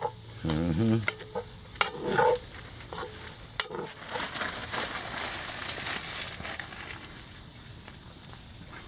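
Collard greens frying in a cast-iron Dutch oven, stirred with a wooden spoon: a steady sizzle with scrapes and knocks of the spoon against the pot as the greens start to wilt.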